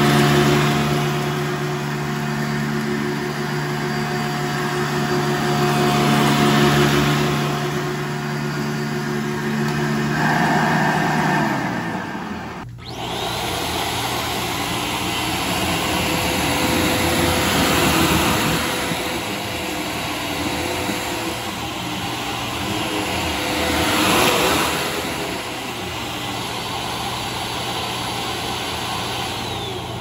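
Upright vacuum cleaners running on carpet. First comes a steady motor hum, which changes abruptly to a rushing suction noise a little under halfway through. That noise swells and fades several times.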